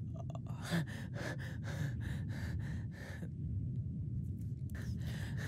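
A man panting rapidly and raggedly in distress, about four to five short gasping breaths a second. The panting stops for about a second and a half and starts again near the end.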